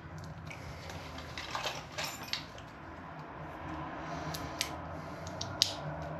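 Scattered small clicks and clinks of metal hardware being handled, a sharp one near the end.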